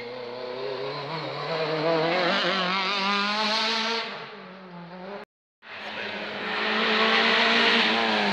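Rally car engine revving hard through a hairpin, its pitch rising and wavering as it accelerates out of the turn. After a brief drop-out about five seconds in, another rally car engine revs loudly.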